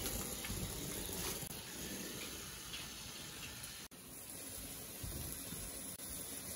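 Open wood fire burning: a steady hiss with a few faint crackles.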